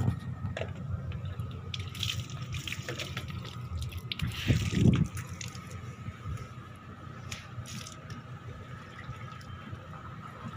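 Water splashing and dripping as a corrugated metal roof is washed and scrubbed by hand, with scattered small splashes and one louder rush of sound about halfway through.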